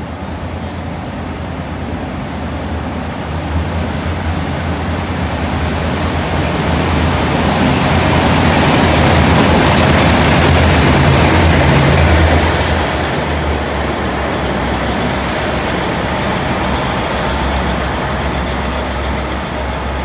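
Taiwan Railways R154, a diesel-electric locomotive running light, passing through an underground station: its engine drone and wheel noise build as it approaches, are loudest as it passes about halfway through, then fade as it runs away.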